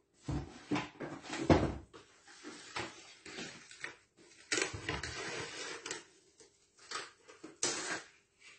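Kitchen handling noises: several knocks and thuds in the first two seconds, the loudest about a second and a half in, then about a second and a half of rustling hiss around the middle and a short burst of it near the end.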